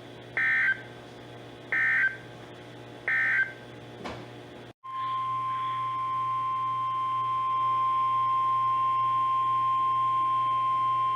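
Three short screeching SAME digital data bursts from a NOAA Weather Radio broadcast, about 1.4 s apart, marking the end of the previous alert message. After a brief break, the steady 1050 Hz Weather Radio alert tone begins and holds, announcing the next alert, a tornado watch.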